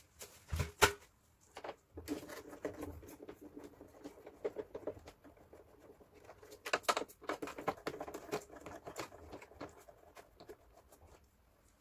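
Hand screwdriver working screws out of the plastic side housing of a Daikin wall-mounted aircon indoor unit: a run of small clicks and scrapes. A few sharper, louder clicks come about half a second in and again about seven seconds in.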